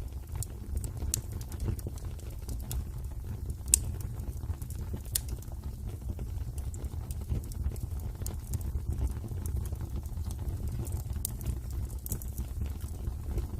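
Wood fire burning in a fireplace: a steady low rumble of the flames with scattered, irregular sharp crackles and pops, the loudest pop a little under four seconds in.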